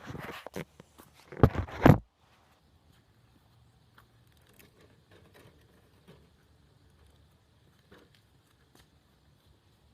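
Rustling and knocking right at the microphone for about two seconds, the loudest just before it cuts off abruptly. Then only faint scattered clicks over a quiet room.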